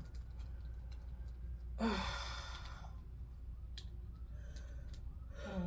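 A woman sighs once, a breathy exhale of about a second, over a low steady hum.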